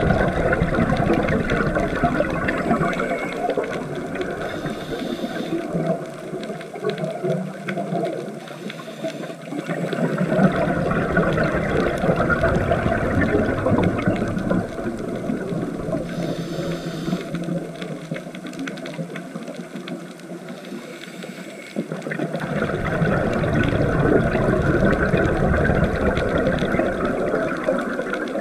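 Underwater recording of a scuba diver's exhaled air bubbling and rushing, in three long surges with quieter stretches between.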